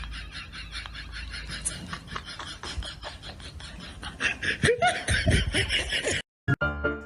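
A person laughing in quick, repeated short bursts. After a sudden cut near the end, piano music begins.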